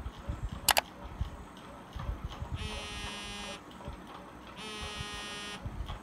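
A telephone ringing: two buzzy rings, each about a second long and two seconds apart, starting about two and a half seconds in. There is a sharp click a little under a second in.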